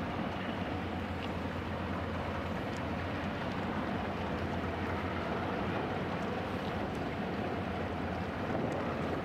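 Large passenger-car ferry under way, giving a steady low engine rumble under an even rush of wind noise.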